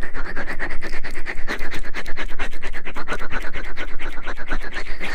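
Fast, even scratching strokes, many a second, kept up without a break: ASMR scratching or rustling sounds.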